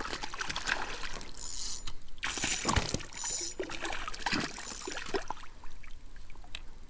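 A hooked fish thrashing and splashing at the surface beside a kayak, in irregular bursts of splashing, the loudest about two to three and a half seconds in.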